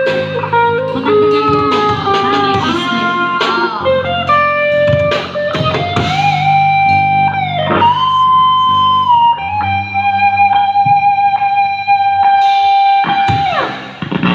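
Electric guitar lead playing a slow melody of bending, sliding and long-held notes over a lower backing, one note held for several seconds near the end: the instrumental intro of a rock ballad before the vocal comes in, played through a loudspeaker.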